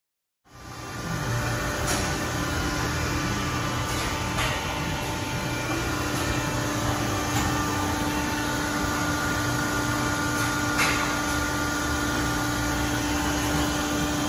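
Car wash tunnel equipment running: a steady mechanical hum and whir with a held low drone and a few faint clicks. It comes in about half a second in.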